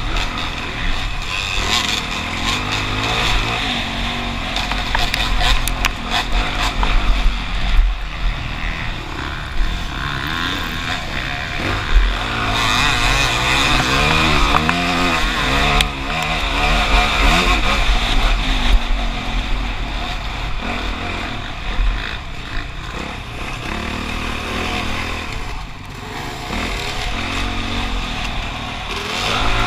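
Motocross dirt bike engine revving up and down as it is ridden hard, the pitch rising and falling with the throttle and gear changes.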